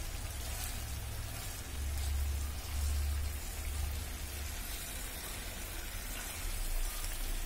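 Thick sugar syrup bubbling and sizzling in a pan around pieces of chhena, a steady crackling hiss like light rain, as the syrup boils down to coat the pieces. A low rumble runs underneath and swells a little a couple of seconds in.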